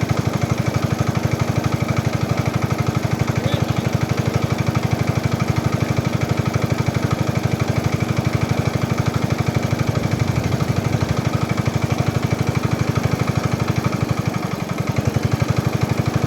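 An engine running steadily at an even speed, with a fast, regular thudding beat.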